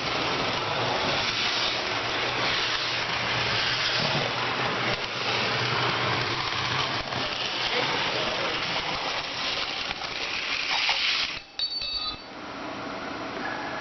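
A motor running steadily with a low hum and a hissing, rattly noise, cutting off suddenly about eleven seconds in; a few brief high ringing tones follow.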